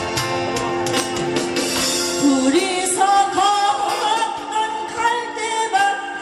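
Live band music: sustained electronic organ chords with regular drum hits, and a singer's voice coming in about two and a half seconds in.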